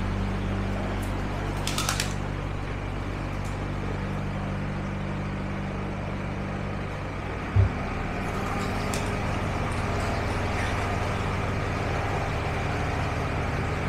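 Narrowboat's diesel engine running steadily under way, a low hum throughout. A short loud thump comes about seven and a half seconds in, and a brief patter of clicks about two seconds in.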